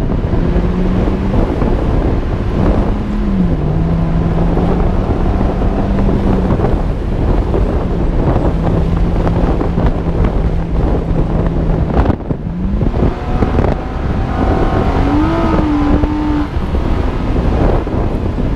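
Nissan Xterra's engine running under load while driving through dune sand, its note mostly steady with a rising surge about twelve seconds in and another a few seconds later. Heavy wind rumble buffets the outside-mounted microphone throughout.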